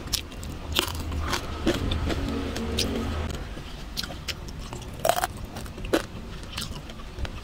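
Crackling and crunching of crispy roast pork skin: a scatter of sharp, separate cracks over a low steady rumble.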